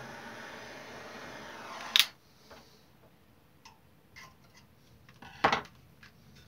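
Handheld butane gas torch hissing steadily as it heats a soft-soldered joint, shut off with a sharp click about two seconds in. Then light ticks and taps as the joint is checked with a pointed tool, and another sharp click about five and a half seconds in.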